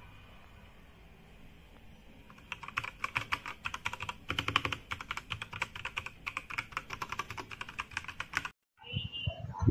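Rapid typing on a Machenike K500 mechanical keyboard: a dense run of key clicks starts about two and a half seconds in and stops abruptly near the end.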